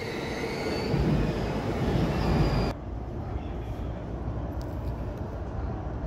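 JR E233-1000 series electric train running, heard from the cab: a steady rumble of wheels on rail with a faint high whine over it. About three seconds in, the high hiss cuts off suddenly and the sound drops to a quieter, lower running noise.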